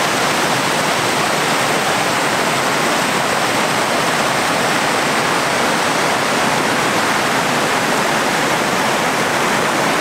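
Mountain river cascading over rock ledges into pools: a steady, loud rush of falling water.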